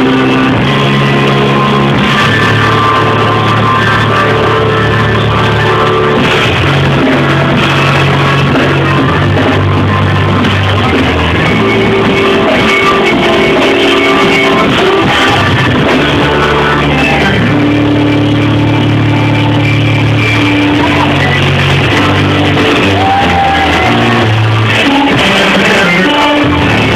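Live band playing loud, driving music with held bass notes and electric guitar, with some shouting over it.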